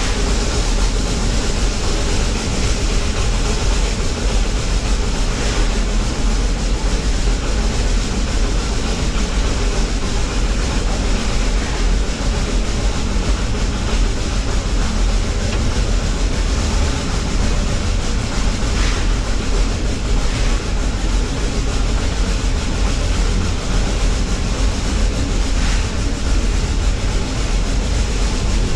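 Steady rumble and rattle of a steam train on the move, its wheels running over the rails, with a few faint clicks here and there.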